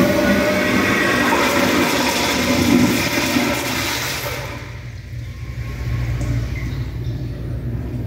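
Wall-hung commercial toilet flushing through a flushometer valve: a loud rush of water through the bowl that drops away about four and a half seconds in, settling to a quieter, lower running-water sound.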